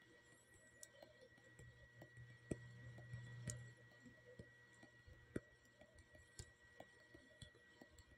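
Near silence: faint room tone with a few scattered faint clicks and a thin steady high tone, and a low hum that swells briefly a little after two seconds in.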